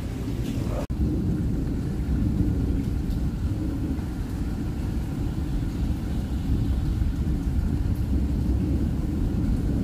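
Thunder rumbling low and steady through a storm. Near the start there is a split-second dropout where the recording is cut.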